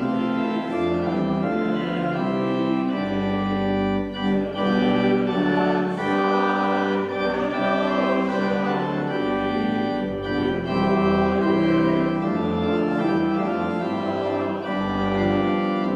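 Church pipe organ playing a hymn in sustained chords, with the congregation singing along.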